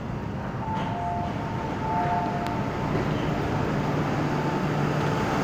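MTR Island Line M-Train stopped at an underground platform, with a series of alternating two-tone electronic chimes about a second in as the doors open, over the steady hum of the train.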